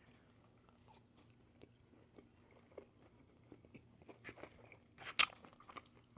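Quiet close-up chewing with faint scattered crunches, and one sharper click about five seconds in, over a faint steady low hum.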